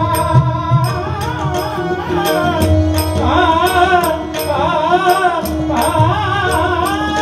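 Live Indian classical vocal performance: a male voice sings a wavering, ornamented melody over a steady harmonium accompaniment, with tabla strokes keeping time, heard through a stage PA.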